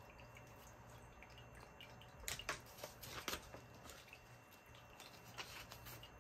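Crackly rustling of plastic binder sleeves and paper being handled, in a burst of short crinkles a little over two seconds in and a shorter one about five seconds in, over a faint low hum.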